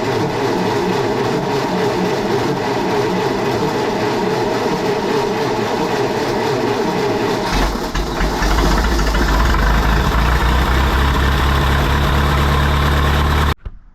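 John Deere 170 skid steer running, a steady engine clatter; about halfway through it turns into a louder, deeper steady drone, then the sound cuts off abruptly near the end.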